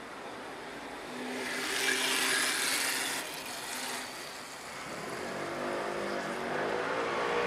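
Road traffic: a vehicle passes about two seconds in, its tyre and engine noise swelling and then fading, and another vehicle's engine draws closer and grows louder near the end.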